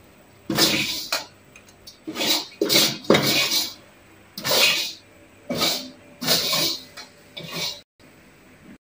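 A metal spatula scraping a metal wok in about seven separate rasping strokes, scraping the last of the cooked food out onto a plate.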